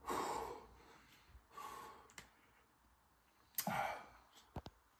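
A man breathing out hard in three heavy sighs, panting against the mouth burn of Carolina Reaper hot chicken, with two faint clicks near the end.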